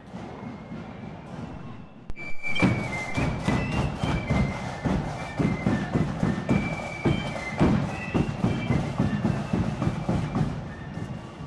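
A marching band starts playing about two seconds in: a high wind melody over regular drum beats. Before that, only quieter street noise.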